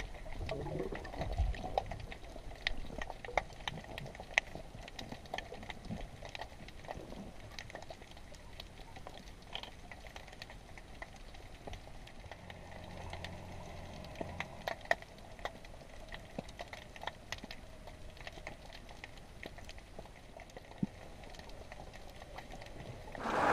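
Underwater ambience in a kelp forest, recorded below the surface: a low hiss with a steady crackle of scattered sharp clicks.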